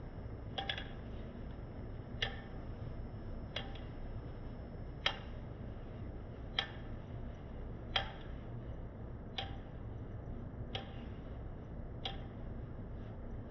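Balisong handles and blade clicking as the knife is fanned round and round in a repeated palm fan, a sharp click about every second and a half over a steady low hum.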